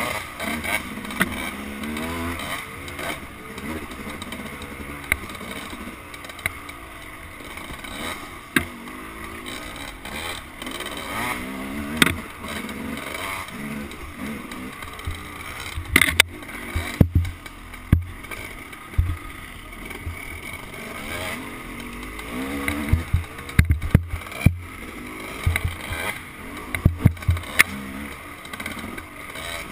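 Dirt-bike engine heard close up from a camera mounted on the bike, revving up and down as it is ridden along the trail. Sharp knocks and clatter come in bunches about sixteen seconds in and again a few seconds later.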